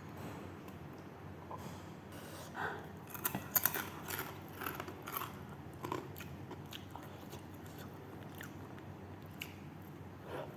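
Close-up mouth sounds of someone eating: biting and chewing food, with a run of short crisp crunches and clicks a few seconds in.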